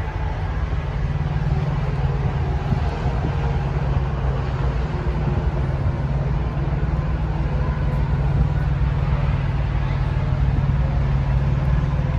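Steady low engine rumble that holds at one pitch, with a fainter outdoor hiss above it.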